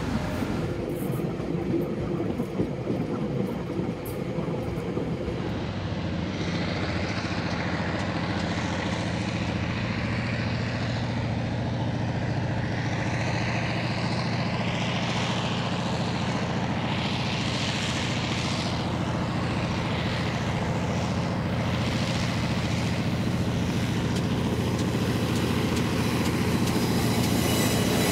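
Diesel-electric locomotives leading a train run with a steady low engine drone as the train approaches, growing louder towards the end as they come close. In the first few seconds, the wheels of passing carriages rush by on the track.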